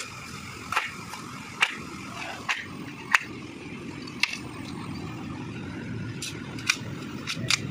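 Irregular sharp taps of a machete blade against a bamboo pole, about eight in all, over steady low background noise.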